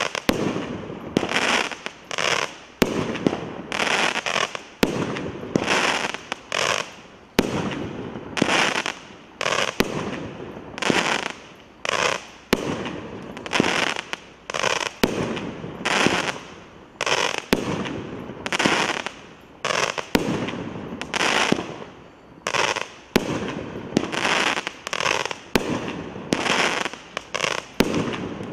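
A 16-shot, 500-gram aerial multi-shot fireworks cake firing shot after shot: sharp bangs from launches and shell bursts about once a second, each trailing off into an echoing tail.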